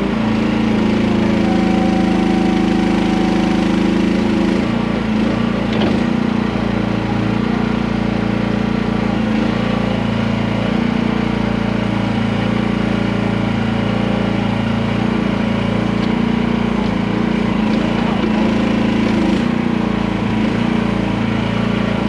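Small gasoline engine of a QH13R micro mini excavator running steadily at working throttle, loud. For a few seconds near the start a higher whine joins the engine, as under hydraulic load.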